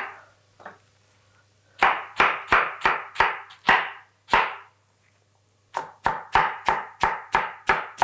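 Chef's knife slicing a head of raw white cabbage into shreds on a wooden cutting board: a quick run of crisp crunching cuts, each ending in a knock on the board, about three a second, with a short pause midway.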